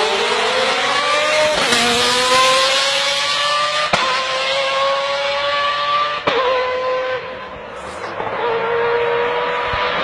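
Lamborghini engine accelerating hard up through the gears: its pitch climbs steadily in each gear and drops sharply at three quick upshifts, each about two seconds apart. It eases off briefly near the end, then pulls again at a steadier pitch.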